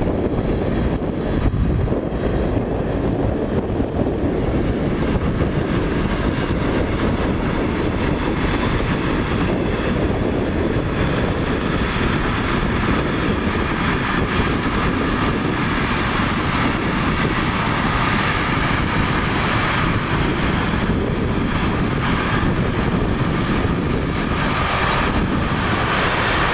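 A train passing close by on the track: a loud, steady rumble of wheels on rail, with a whine coming in about halfway through.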